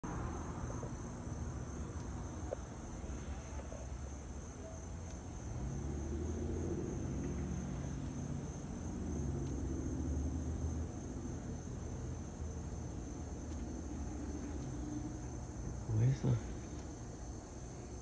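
Steady high-pitched buzzing of cicadas over a low rumble, with two brief thumps near the end.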